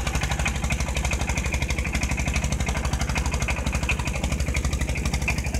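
Small wooden fishing boat's inboard engine running steadily, a rapid even pulsing with a strong low end.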